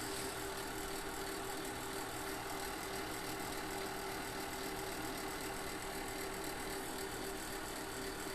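Steady hum of a car's running engine heard inside the cabin, with a faint steady tone over it and no change throughout.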